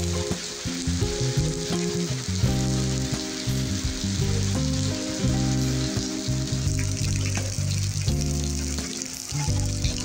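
Steady hiss of rain falling on paving, over calm background music of sustained low chords that change every second or so.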